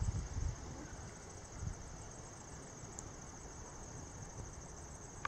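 A faint, steady, high-pitched trill of insects in the grass, with a few low rumbles of wind on the microphone.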